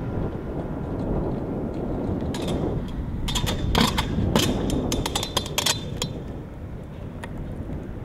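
Stunt scooter riding: a steady rolling rumble of the wheels on concrete, with a string of sharp clacks and knocks from about two and a half to six seconds in as the scooter strikes the wall and the ground.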